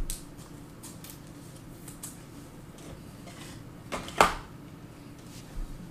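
Hands handling trading cards and their plastic sleeves and holders: a few soft clicks and rustles, with one sharper click and slide about four seconds in. A faint steady hum runs underneath.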